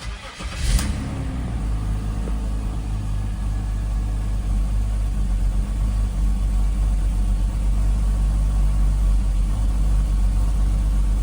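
BMW X5 E53's M54 3.0-litre straight-six is started from cold. After a brief crank it catches with a rev flare about a second in, then settles into a steady idle. It runs slightly rough, but the chattering from its cracked torque-converter flexplate is not heard cold.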